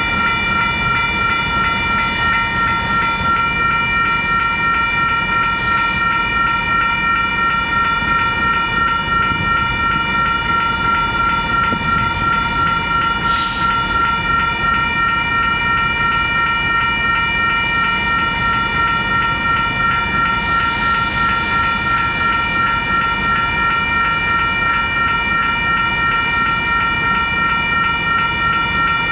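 Union Pacific train rumbling past over a grade-crossing bell ringing steadily and rapidly, a constant cluster of high metallic tones. There is one brief sharp click about thirteen seconds in.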